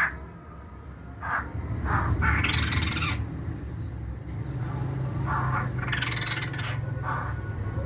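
Masked laughingthrush (poksay Hongkong) calling in a series of short harsh notes, with two longer harsh calls about two and six seconds in. A steady low hum runs underneath.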